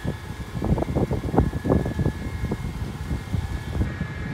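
A steady machine drone carrying a thin, constant high whine, with irregular sloshing and splashing of water as men wade through a shallow muddy pond.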